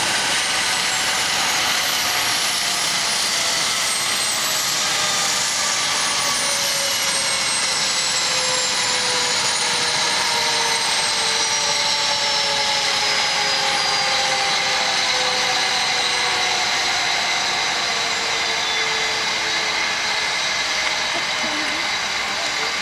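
MD 900 Explorer helicopter on the ground with its twin turboshaft engines and main rotor running down after landing. A steady loud rush with several whines that fall slowly and evenly in pitch as the turbines spool down.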